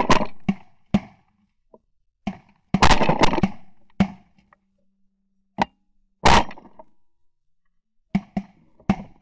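A series of shotgun blasts, each sharp and cut off abruptly, with dead silence between them, as picked up by a camera mounted on the gun barrel.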